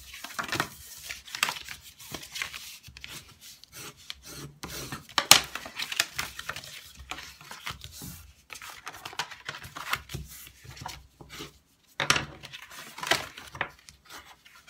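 Red cardstock being folded along its scored lines and the creases pressed flat by hand on the tabletop: irregular rubbing and scraping of paper, with a few sharper strokes.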